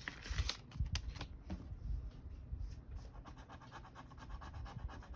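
Scratch-off card being scratched: scattered rustles and clicks, then from about three seconds in a run of quick, even scratching strokes.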